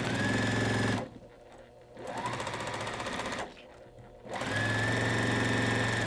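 Electric sewing machine stitching a border onto a quilt top in three short runs, stopping twice in between; each restart begins with a rising whine that settles into a steady hum.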